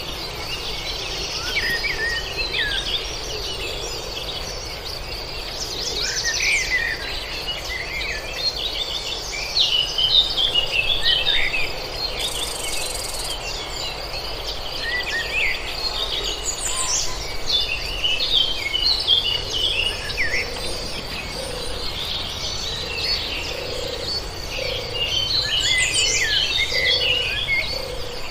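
Several birds chirping and calling in quick, overlapping phrases over a steady high-pitched insect trill, with a low background hush.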